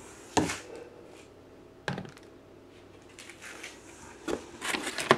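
Plastic supplement tubs being handled in a cardboard box: four separate knocks and thuds as the tubs bump the cardboard, with light rustling between them.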